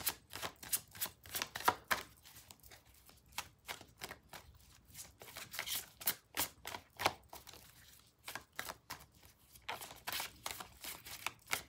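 A deck of tarot cards being shuffled by hand, packets of cards dropped from one hand onto the other: a steady run of irregular soft card slaps and clicks, several a second.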